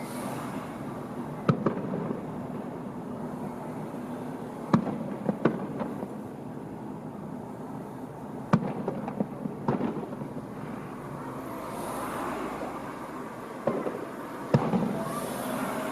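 Fireworks bursting: sharp bangs every few seconds, several followed by a run of smaller crackles, over a steady background rumble.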